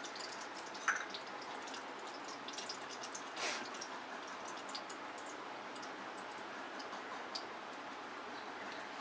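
Cooking oil heating in an iron kadhai over a gas burner: faint scattered ticks and crackles over a steady low hiss. There is one sharper tick about a second in.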